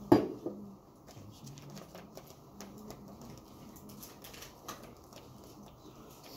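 Quiet classroom room sound: one sharp knock right at the start, then scattered faint taps and clicks over a low murmur.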